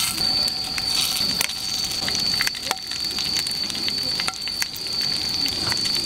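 Meat frying on a hot griddle pan, sizzling with many small spattering pops. A steady high-pitched tone runs underneath.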